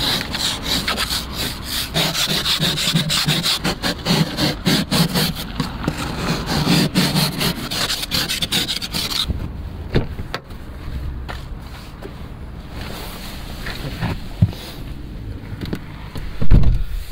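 Plastic ice scraper scraping frost and ice off a car windscreen in rapid, repeated strokes for about nine seconds, then quieter for several seconds. A heavy thump near the end, the car door shutting.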